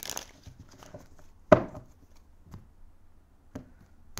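Tarot cards being riffle-shuffled and bridged: a short rustling cascade of cards at the start, then one sharp knock about a second and a half in, followed by a few lighter taps as the deck is handled on the table.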